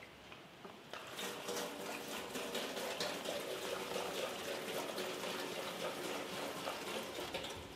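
Gasoline pouring from a plastic gas can through a funnel into an old tractor's fuel tank. It starts about a second in and runs steadily, poured in to flush the fuel system after the sediment bowl has been taken off.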